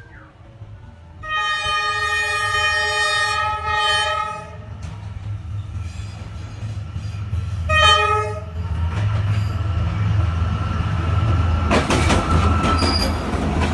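Train horn sounding one long blast of about three seconds, then a short blast about eight seconds in, over the steady low rumble of the train. Near the end, a rapid run of clicks and clatter from the wheels on the track.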